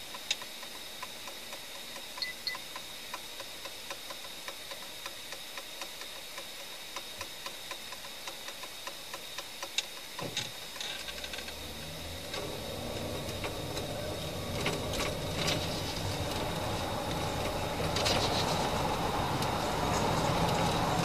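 Police cruiser's turn-signal indicator ticking about twice a second while the car waits at an intersection. About ten seconds in, engine and tyre noise rise as the car pulls away and turns.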